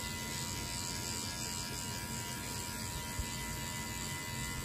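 Cordless hair clipper fitted with a guard comb, running with a steady buzz as it cuts hair on the side of the head to blend a fade.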